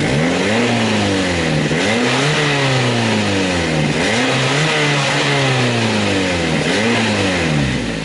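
Mazda 3's small four-cylinder engine revved in about five blips from idle, pitch rising and falling each time. Through a hole in the exhaust pipe ahead of the muffler it sounds loud, raspy and deep.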